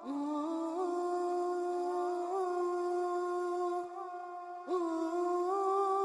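Slow wordless humming used as background music: long held notes with small turns, a phrase falling away just before five seconds in and a new one starting straight after.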